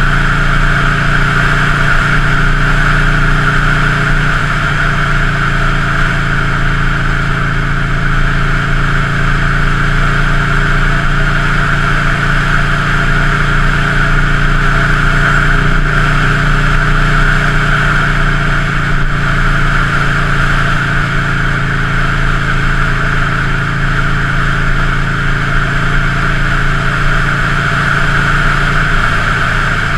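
Buell Lightning XB9's 984 cc air-cooled V-twin engine idling steadily, with no revving.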